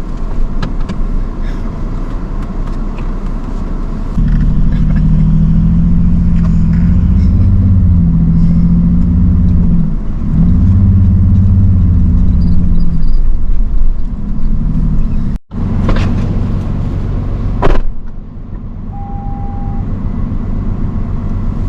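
Vehicle engine revving hard under load as the wheels spin in loose ground, its pitch rising and falling in two long pushes. A brief dropout comes after that, then a single knock and a lower, steadier engine sound.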